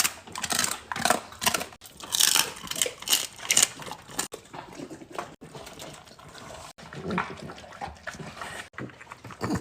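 Dogs eating from their bowls: irregular wet chewing, smacking and licking of raw food, busiest in the first few seconds and sparser after.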